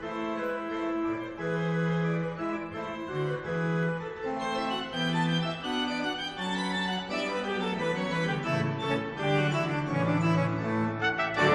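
Church pipe organ playing a solo Baroque passage: held notes moving step by step, with lower bass notes joining in the second half.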